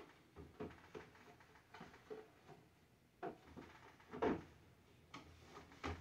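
Scattered light knocks and clunks of plastic shelves and bins inside a Kenmore French-door refrigerator being handled as the compartment is cleaned out, the loudest knock a little past halfway.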